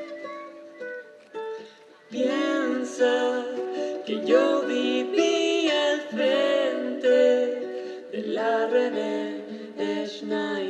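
Live folk music: a plucked string instrument picks out quiet notes, and about two seconds in a loud melody line with vibrato comes in over it and carries on.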